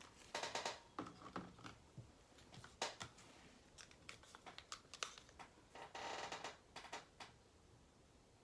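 Faint, irregular clicks and taps of small objects being handled, with a longer rustle about six seconds in.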